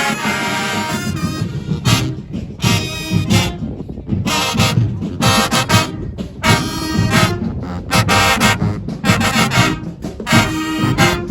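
Marching band playing: the brass and saxophones blare short, punchy phrases and stabs over a steady pounding drumline.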